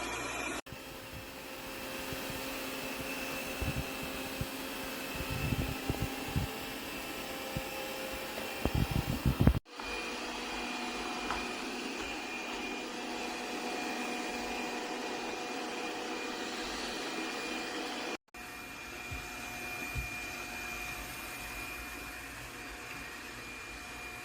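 Laresar robot vacuum running with a steady motor and suction whine, cut off abruptly and restarting twice. Between about four and nine seconds in, a run of low thumps rises over it.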